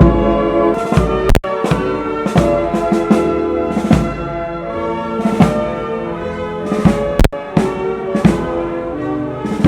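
Brass band playing: sustained brass chords over regular drum strikes.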